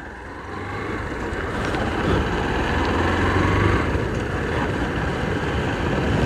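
Motorcycle engine running as the bike rides along a dirt track, with rushing wind noise on the camera microphone; it grows louder over the first two seconds as the bike picks up speed, then holds steady.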